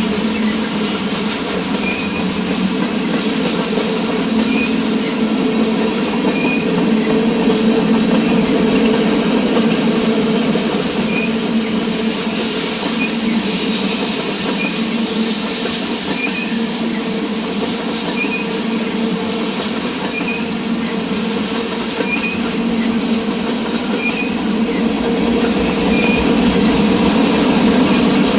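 Freight train cars rolling past: a steady, loud rumble of steel wheels on rail, with faint short wheel squeaks about every two seconds.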